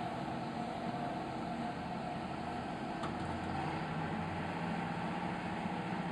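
Bucyrus-Erie 54B crawler crane's engine running steadily while its clamshell grab holds a stone boulder aloft; about three seconds in there is a short click and a new, lower steady tone joins the engine sound.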